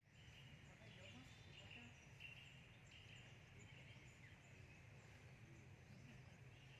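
Near silence: faint outdoor ambience, with soft, irregular high chirps of small birds or insects over a low steady rumble.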